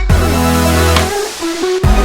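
Electronic pop music with a heavy bass line and sustained synth notes, no singing in this stretch.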